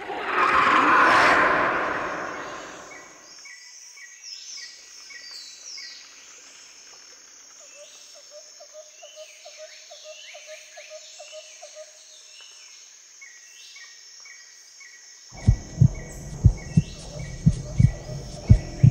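A loud harsh roar that fades over the first three seconds, then jungle ambience of birds and insects chirping, whistling and trilling. About fifteen seconds in, deep irregular thumps start, about three a second.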